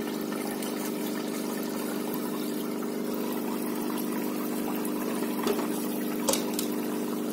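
SOBO WP-1200F internal aquarium filter running just after being switched on: a steady electric motor hum with water churning as its air tube draws air into the outflow. Two short knocks sound near the end.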